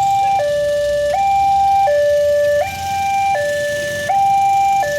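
Railway level-crossing warning alarm sounding a loud two-tone hi-lo signal, switching pitch about every three-quarters of a second.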